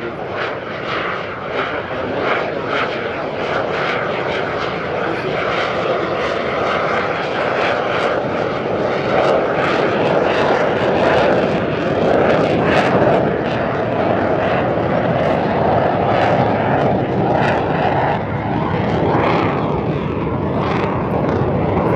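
Saab JAS 39 Gripen C fighter's single Volvo RM12 turbofan engine, a loud, steady jet noise as the jet flies past and climbs away. The noise swells slightly over the first half, then holds steady.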